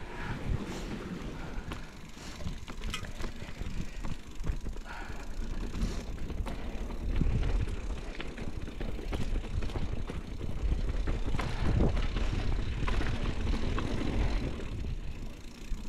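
Mountain bike rolling over dirt singletrack: a low rumble of tyres and wind on the microphone, with frequent rattles and clicks from the bike over roots and bumps. It gets louder about halfway through.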